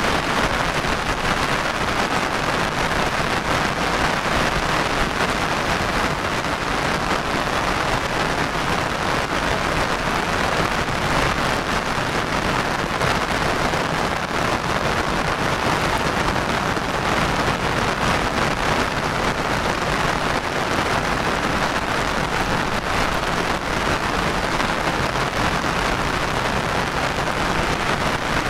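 Heavy rain falling steadily, an even, unbroken hiss of rain.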